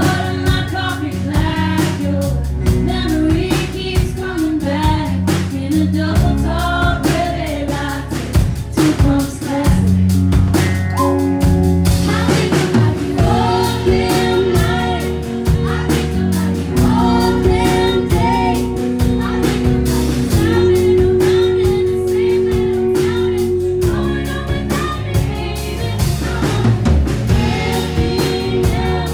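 Live band music: a woman sings lead over electric guitar and a drum kit.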